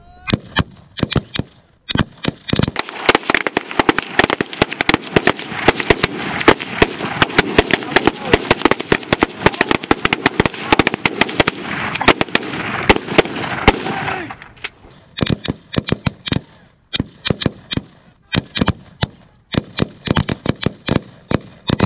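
Gunfire from a line of several shooters firing pistols and rifles at once. From about two seconds in the shots overlap into a near-continuous rapid volley, which thins to separate shots at about fourteen seconds.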